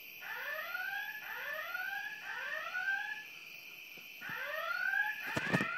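EST re-entrant fire alarm speaker strobe sounding a whoop evacuation tone in a temporal-three pattern: three rising sweeps of about a second each, a pause of about a second, then the sweeps start again. A steady high whine runs underneath, and a few sharp clicks come in near the end.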